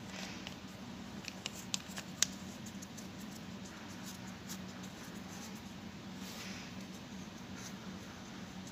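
Light handling noise: a few small clicks and taps in the first couple of seconds as a brass-tipped oil pressure sensor and its cable are fitted against a compressor's oil pump housing. Under it runs a low steady hum.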